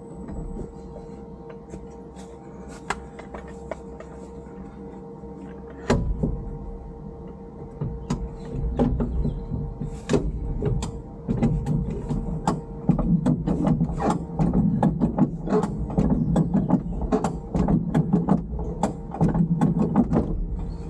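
Mechanical clicking and knocking on a stopped off-road car over a steady hum: a thump about six seconds in, then a low rumble and irregular clicks and knocks that grow busier toward the end.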